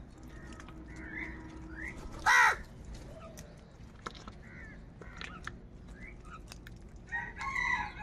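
House crows calling while they feed: scattered caws, one loud short caw falling in pitch about two seconds in, and a longer call near the end. Faint ticks of beaks pecking at grain run underneath.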